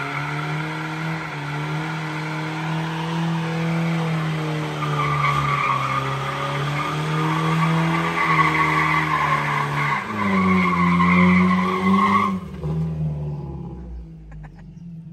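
Toyota Tacoma pickup doing a burnout: the rear tires squeal steadily against the pavement while the engine is held at high revs, rising a little near the end. About twelve seconds in the tire squeal cuts off suddenly and the engine fades as the truck pulls away.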